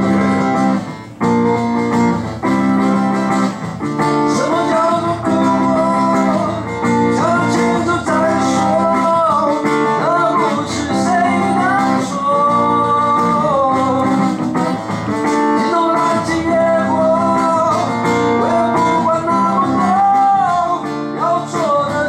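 Steel-string acoustic guitar strummed in steady chords, with a man singing a melody over it into a microphone from a few seconds in.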